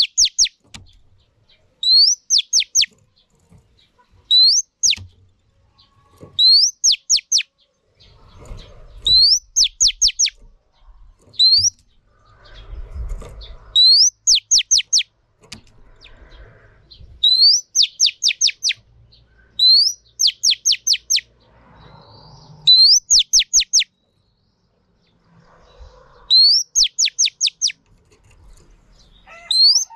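Female oriental magpie-robin calling over and over: each phrase is a rising whistle followed by a quick run of four to six falling notes, repeated about every one and a half to two seconds.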